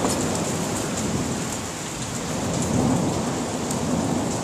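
Heavy rain pouring steadily in a thunderstorm, with a low rumble of thunder swelling about three seconds in.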